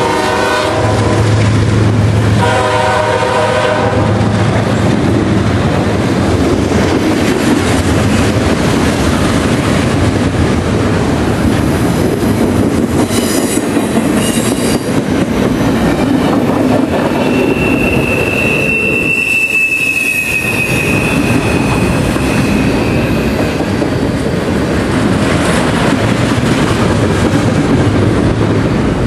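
Freight locomotive horn sounding a chord, ending just after the start and blowing again for about two seconds from around two seconds in, then the steady rumble and clatter of double-stack container well cars rolling past close by. A single high wheel squeal rings out for several seconds past the middle.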